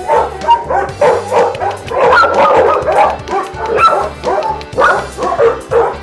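Many dogs barking and yipping at once in a row of shelter kennels, a dense, continuous chorus of overlapping barks.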